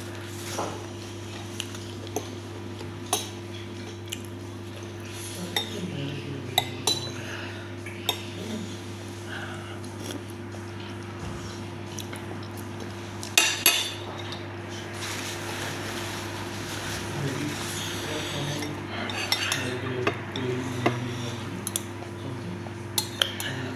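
A spoon and fork clinking and scraping against a plate and bowl during a meal of momo, with scattered sharp clinks and a pair of louder ones about halfway through, over a steady low hum.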